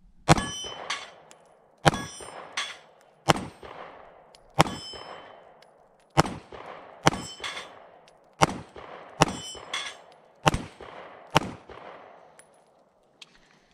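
About ten slow, aimed shots from a Smith & Wesson CSX 9mm micro pistol, roughly one every second or so. Several shots are followed by the ring of steel plate targets being hit.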